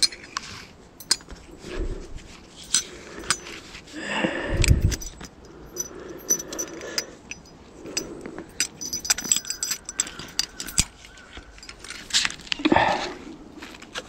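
Metal buckles and clips of a tree-climbing belt clinking and rattling as a climbing strap is passed around a tree trunk and fastened to a harness, with the rustle of clothing and bark. There is a louder rustling thump about four seconds in and another near the end.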